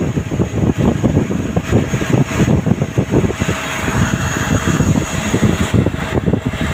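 CNC lathe running a turning cut, the spindle and chuck spinning while flood coolant sprays and splashes over the tool and workpiece: a loud, continuous churning rattle with a faint steady whine underneath.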